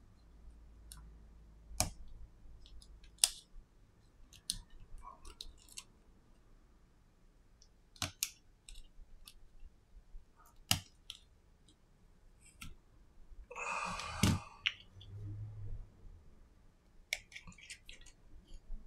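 Small metal tools clicking and tapping on the metal parts of an iPhone SE display assembly during disassembly, in scattered sharp ticks. About 14 s in, a rustle of about a second ends in a thump.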